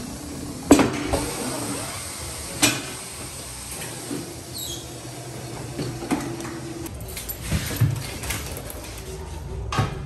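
Clanks and knocks of a motorcycle wheel being handled and set onto a tire-changing machine, the loudest sharp knock about a second in and a few more spread through, with a short high squeak about halfway.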